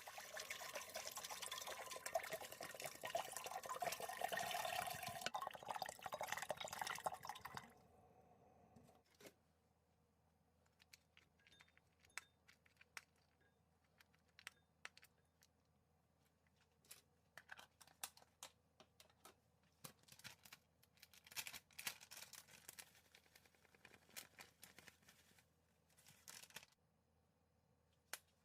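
Water running from a tap for about eight seconds, then shut off, followed by scattered light clicks and clatter.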